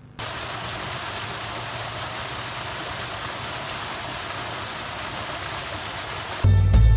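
Steady rush of spring water gushing down over a rock and splashing onto the ground below. Music comes in suddenly near the end.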